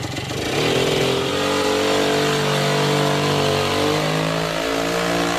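Three-wheeled moped's small engine pulling away: its note rises as it picks up speed over the first second or so, then holds fairly steady as it rides off.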